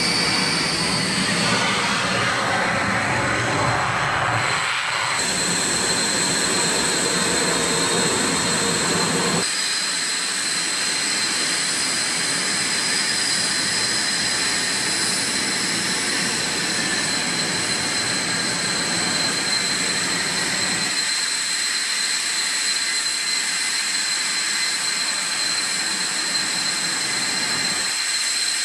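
Jet engines running at ground idle, a steady high whine over a rushing noise, heard from an open cockpit. The sound changes abruptly several times, and about ten seconds in the low rumble drops away, leaving the whine and hiss.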